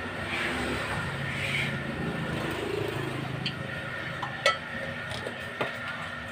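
A few sharp metallic clinks, the loudest about four and a half seconds in, from pipe fittings and tools being handled while threading fittings onto a water pump, over a steady background hum.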